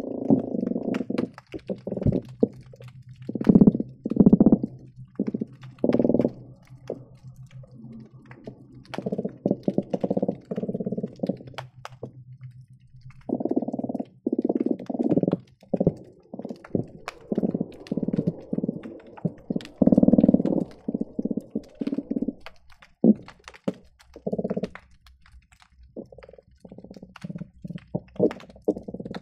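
Croakers calling underwater, recorded by hydrophone: overlapping bursts of rapid low drumming, each lasting from a fraction of a second to about two seconds, follow one another with short gaps. A steady crackle of short sharp clicks runs underneath.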